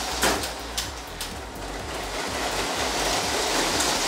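Motorized Lego City trains running on plastic Lego track: a steady whirring rattle of motors and wheels, with a few sharp clicks in the first second or so.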